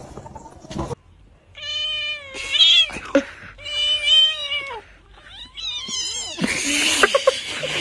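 A cat yowling: three long, loud meows, each sliding down in pitch at the end, followed near the end by a harsh, noisy rasp.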